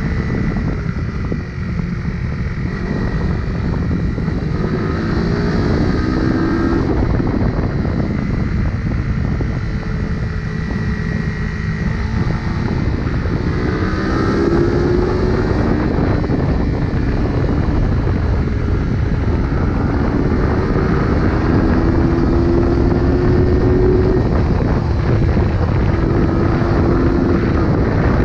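1977 Honda CB125 twin's four-stroke parallel-twin engine running under way, its pitch rising several times as it pulls through the revs, with wind rushing over the microphone.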